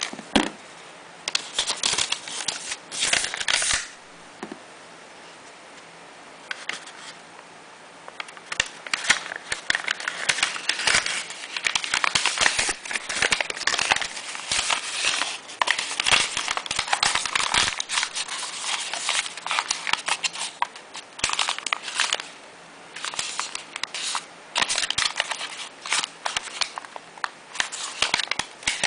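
Printed paper wrapper crinkling and rustling in irregular bursts as it is folded by hand around a bar of handmade soap, with a sharp knock at the start and a quieter stretch a few seconds in.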